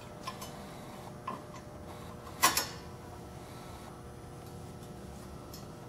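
A few small clicks and taps as a nut and bolt are fitted by hand through the bottom of a display-rack rail, the loudest click about two and a half seconds in, over a low steady room hum.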